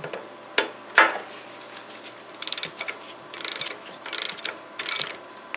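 A ratchet wrench clicking in four short runs of quick strokes as the hydraulic reservoir's drain plug is tightened back in on a Scag Tiger Cub mower. Two sharp knocks of the tool come in the first second.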